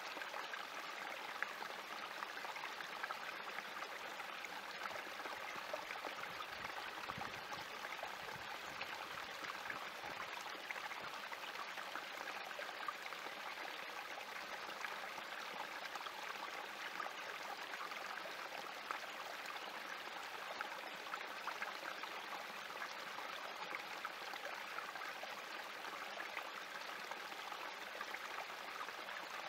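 Small spring creek trickling and splashing over rocks down a little cascade, a steady rush of running water.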